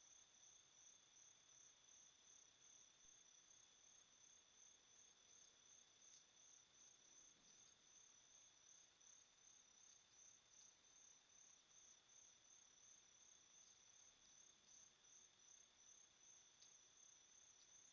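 Faint crickets chirping in a steady, even pulsing rhythm over a low hiss, with a steady high tone beneath.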